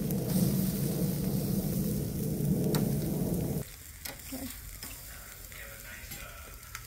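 Steaks sizzling and crackling on a charcoal grill, with a strong low rumble underneath. The sound cuts off abruptly about three and a half seconds in, leaving a much quieter background.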